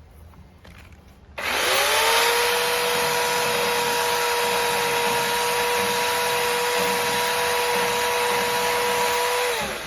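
Chainsaw starting up suddenly about a second and a half in, then running at one steady, high whine for about eight seconds before winding down near the end.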